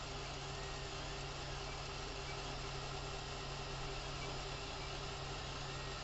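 Creality Ender 3 3D printer running mid-print: a steady hum and whir from its cooling fans and stepper motors as the print head traces the walls of the part.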